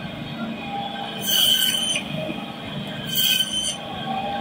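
Meat band saw running with a steady whine and screeching twice in bursts of under a second, about a second in and again about three seconds in, as chunks of boal fish are pushed through the blade.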